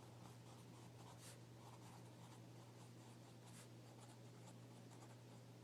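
Faint, irregular scratching strokes of a pen writing on paper, over a steady low hum.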